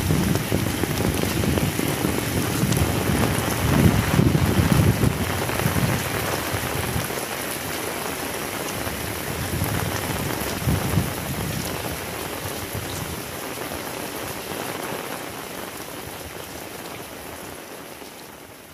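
Heavy rain pouring steadily, with bouts of low rumbling in the first half. It fades out gradually toward the end.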